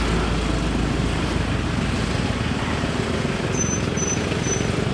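Steady street traffic noise: the rumble of passing road vehicles. Three short, faint high beeps come near the end.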